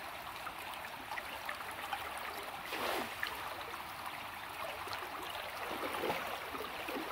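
Small, shallow river channel running fast over roots and branches: a steady babble of flowing water, with a brief louder gurgle about three seconds in.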